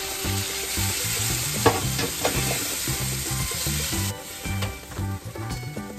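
Garlic, onion and freshly added tomato sizzling in a hot nonstick frying pan while being stirred with a spatula, with a few sharp scrapes and taps of the spatula on the pan. The sizzle is strong at first and dies down about four seconds in.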